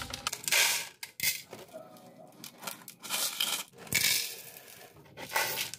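Dry brown beans rattling as they are scooped and poured into a plastic measuring cup and a bowl, with a plastic bag rustling, in several short bursts.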